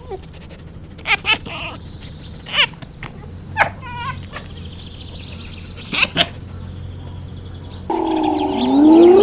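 Short bird chirps, single calls and a quick run of falling notes, spaced a second or more apart over a low steady hum. Near the end a louder animal call with sliding, wavering pitch begins.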